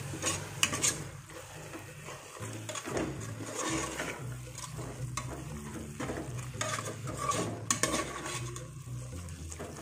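A metal spoon stirring and scraping a thick, wet masala of fenugreek leaves and tomato with yogurt in an aluminium pot, with a few sharp clinks against the pot's side and a light sizzle underneath.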